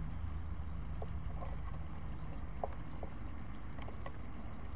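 A steady low hum with a few faint short ticks scattered through it. No shot is heard.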